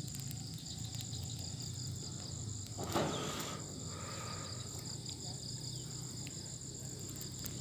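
Steady high-pitched chorus of insects, crickets or cicadas, chirring without pause, with one short louder sound about three seconds in.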